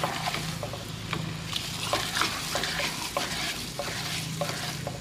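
Duck sausages (lạp vịt) sizzling as they brown in a frying pan, with irregular clicks and scrapes of a utensil moving them around the pan.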